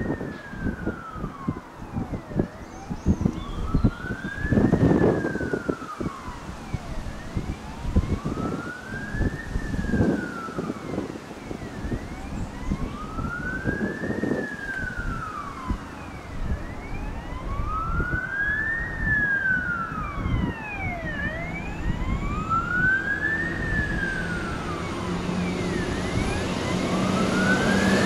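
Emergency-vehicle siren in wail mode, rising and falling slowly about once every five seconds. Near the end, a Class 769 train draws closer and grows louder with a low, steady engine drone.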